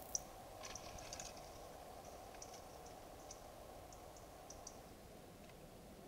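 Near silence: a steady low hiss from the trail camera, with a few faint, short high ticks at irregular intervals.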